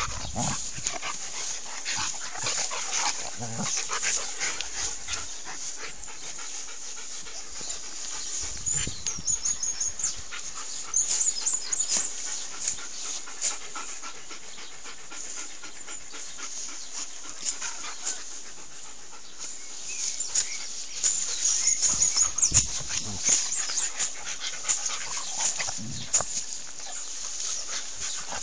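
Alaskan Malamute and another dog play-wrestling: panting and scuffling, with a rustling crackle of fur and grass and louder flurries twice.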